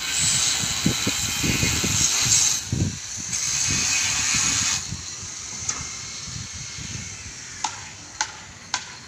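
Wind rumbling on the microphone over a steady hiss for about the first five seconds. Near the end come sharp metallic knocks, nearly two a second, like a hammer striking steel.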